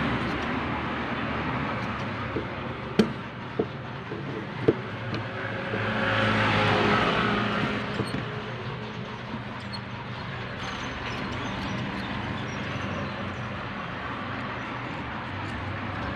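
Steady background traffic noise, with a vehicle passing about six to eight seconds in, rising and falling. A few sharp clicks come between about two and five seconds in.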